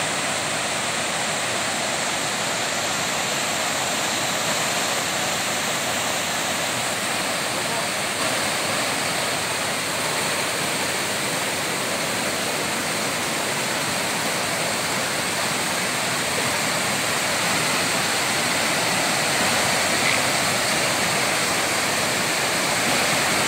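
Waterfall and swollen stream rushing steadily over rocks, a constant wash of running water.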